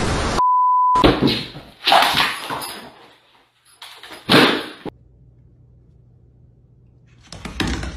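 A short steady beep, a censor bleep, about half a second in, then three sudden loud bangs or clatters over the next few seconds, followed by a low lull.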